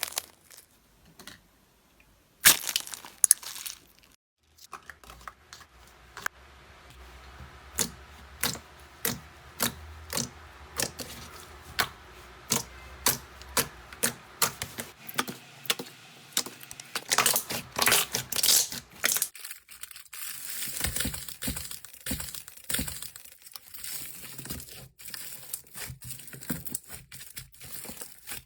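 Slime being squeezed and poked by hand, giving a run of sharp crackling pops and clicks, about two a second for a long stretch. The texture changes a couple of times as one slime clip gives way to the next.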